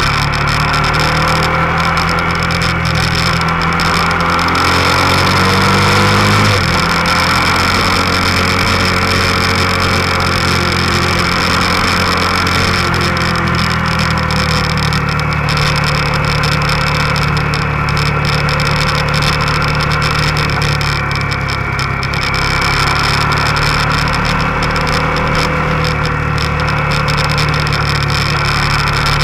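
Motorcycle engine running under way, with heavy wind rush over the microphone. The engine pitch climbs for the first six seconds, drops sharply at a gear change about six and a half seconds in, then holds fairly steady.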